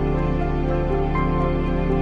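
Soft, slow background music with sustained notes over a steady low bass.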